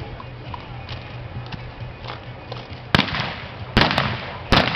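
Three gunshots about a second apart, starting about three seconds in: a mounted shooter firing blank rounds from horseback at balloon targets.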